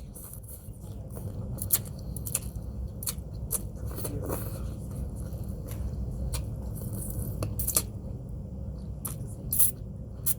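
Close-miked eating of pho with chopsticks: scattered sharp clicks and taps over a low, steady rumble, with the loudest clicks near the start and twice near the end.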